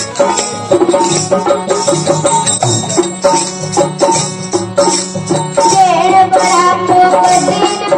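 Folk bhajan music without words: hand drums and a steady jingling percussion keep the rhythm, and a wavering melody line enters about two-thirds of the way through.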